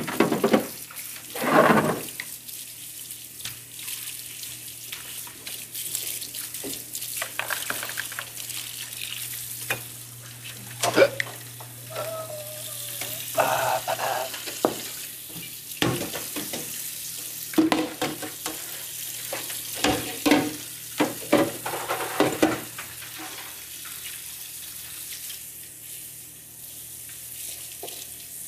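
Kitchen tap running into a sink during washing-up, with repeated clatter of dishes and plastic containers being handled. A steady low hum sits under it for the first half.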